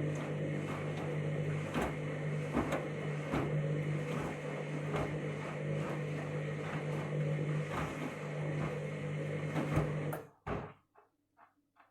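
Washing machine motor turning the drum during a rapid wash tumble: a steady hum with a regular knock about every 0.8 seconds. The motor stops about ten seconds in, followed by a thump and a few light ticks.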